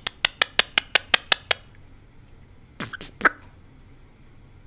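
Pet parrot making a quick run of about ten sharp clicks, about six a second, then two short breathy noises near the middle and a single click at the end.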